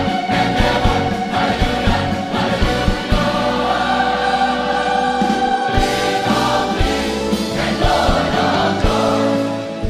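Large church choir singing a hymn, holding long chords on the words "and Lord of lords" over instrumental accompaniment with low bass notes.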